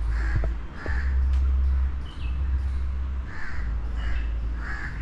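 Crows cawing, about four separate caws spaced through a few seconds, over a steady low rumble.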